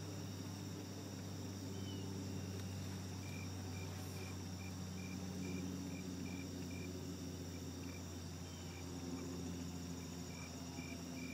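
Steady chorus of crickets and other field insects trilling. One insect chirps in a regular pulse about three times a second, starting about three seconds in, breaking off briefly and picking up again.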